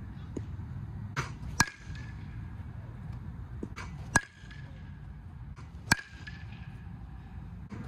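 Axe Avenge Pro youth baseball bat hitting pitched balls three times, each contact a sharp ping with a brief ring. The hits come about one and a half, four and six seconds in, with fainter knocks just before the first two.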